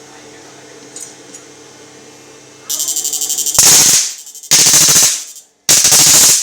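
Homemade IGBT electric fish-shocking machine firing: a faint steady hum, then a little under three seconds in a rapid pulsing buzz starts, followed by three loud bursts of fast rattling discharge, each about half a second long.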